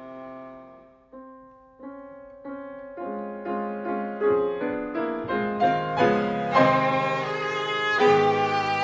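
Viola and piano playing classical chamber music: a soft held note dies away about a second in, then a phrase of separate bowed notes with piano builds steadily in loudness.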